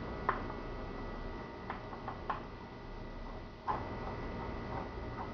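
A screwdriver backing out a small retaining screw from a door lock's handle: a handful of light, scattered clicks of metal on metal.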